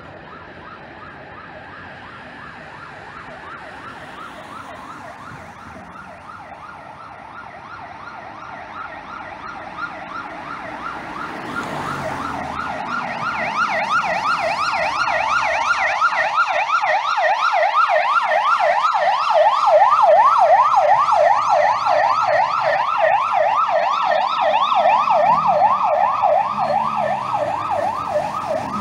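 Ambulance siren in fast yelp mode, its pitch sweeping about four times a second. Faint at first, it grows much louder from about halfway through as it approaches, then eases off slightly near the end.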